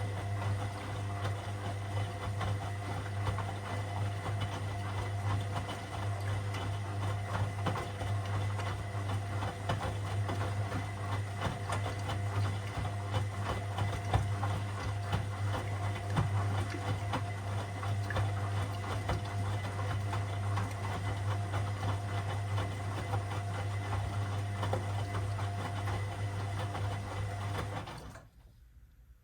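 Washing machine running mid-cycle: a steady motor hum with a rattle of small ticks and sloshes as the drum turns the laundry. The motor stops abruptly about a second before the end, the pause between drum turns.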